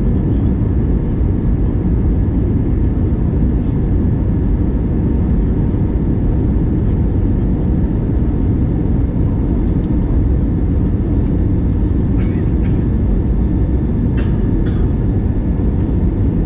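Steady rumbling cabin noise inside an Airbus A321neo airliner, with a faint high whine held throughout. A few short clicks or rattles come near the end.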